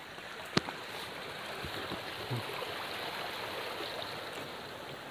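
Steady rush of flowing water, with a sharp click about half a second in and a couple of faint knocks later.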